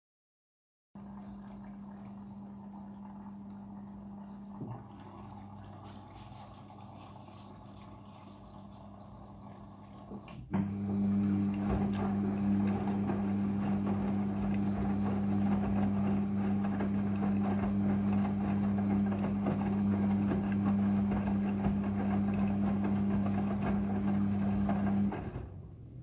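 Midea front-loading washing machine in its first rinse: water running with a steady hum. About ten seconds in there is a click, then the hum and the water sound grow much louder as the drum tumbles the wet clothes, dropping back shortly before the end.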